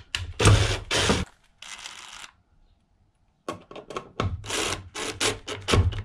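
DeWalt cordless drill-driver driving terminal screws into a 12-volt fuse block. Two short bursts of running in the first two seconds, a pause, then a quick string of clicks.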